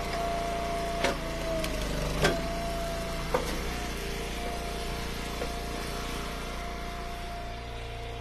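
Engine of an Eastonmade Ultra wood splitter running steadily, with sharp wooden knocks about one, two and three seconds in, and a fainter one later.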